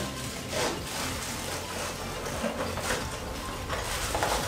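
Cardboard box of a microphone stand being handled and opened by hand: several short scrapes and rustles of the cardboard.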